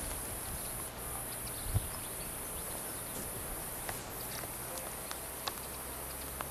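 Outdoor ambience: a steady high hiss over a low rumble, with a few faint scattered ticks and clicks. The hiss breaks off briefly about a second in and again about four seconds in.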